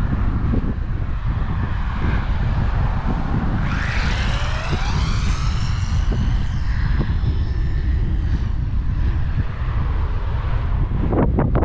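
Wind buffeting the microphone throughout, with the high electric whine of a WLToys 12428 RC car's brushless 4.5T motor rising in pitch about four seconds in as the car accelerates, then falling away over the next few seconds. A few sharp knocks near the end.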